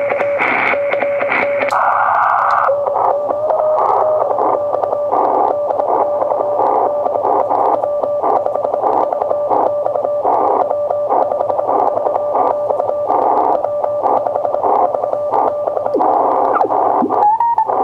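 Morse code (CW) on the 40-metre band through a Collins 75A-4 tube receiver: a steady tone keyed on and off over band hiss. A few seconds in, the hiss narrows as the selectivity is switched. Near the end the tone rises in pitch as the main dial is tuned.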